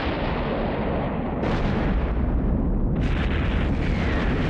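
Continuous rumble of war sound effects, explosions and artillery bombardment, with new blasts breaking in about a second and a half and three seconds in.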